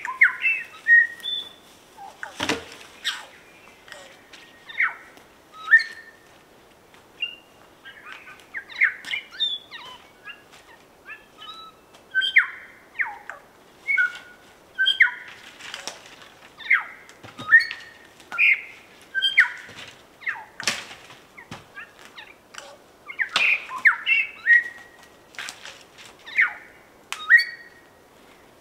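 New Zealand bellbird (korimako) singing: a long run of short, clear whistled notes, some sliding up or down, coming one to three a second, with a few sharp clicks among them.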